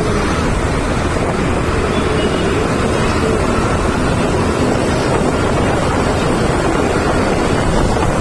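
Steady wind rushing over the microphone while travelling in a moving vehicle, with road and engine noise underneath.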